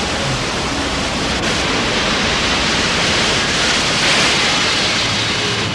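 Loud rush of breaking ocean surf, a dense roar of water that swells about four seconds in.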